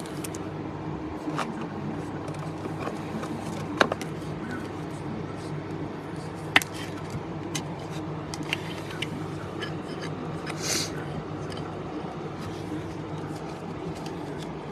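Baseball trading cards being handled and sorted: scattered light clicks and taps, and a short rustle about eleven seconds in, over a steady low hum.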